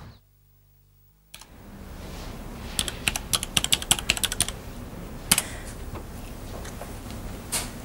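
Typing on a desktop computer keyboard: quick runs of key clicks over a low room hiss, beginning after about a second of silence, with a few single keystrokes near the end.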